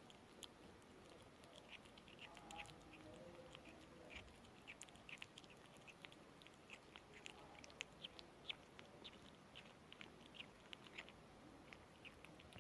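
A kitten chewing its food: quick, soft chewing clicks, several a second and irregular, heard faintly.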